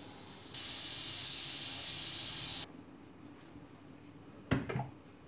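Pressure cooker letting off steam through its valve at the end of cooking: a loud, even hiss for about two seconds that starts and stops abruptly. About four and a half seconds in, a short clatter as its lid is handled.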